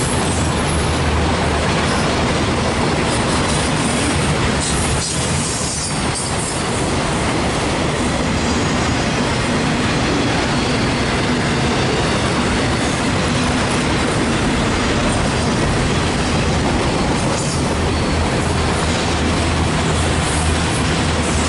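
Loaded autorack freight cars rolling past, a steady, continuous noise of steel wheels running on the rails.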